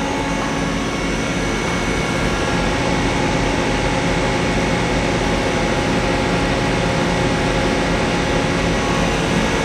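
Main and sub spindles of a Mori Seiki SL-200SMC CNC turning center running together at speed: a steady mechanical whine with several tones over a hum, growing slightly louder as the spindle speed is raised.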